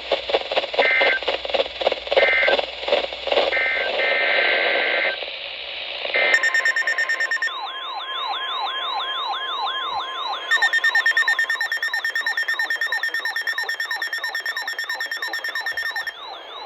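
Emergency Alert System broadcast tones: short bursts of steady data tones, then from about seven seconds in a continuous electronic alert tone warbling up and down about three times a second. It is the alert signal that comes before the next warning is read.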